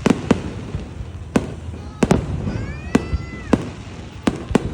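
Fireworks display: a string of sharp bangs, some in quick pairs, over a low rumble. Partway through, a whistle rises and holds, then cuts off with a bang.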